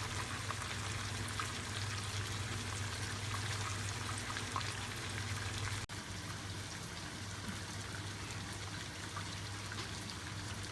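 Garlic frying in hot oil in a pan: a steady sizzling hiss dotted with small crackles, over a steady low hum.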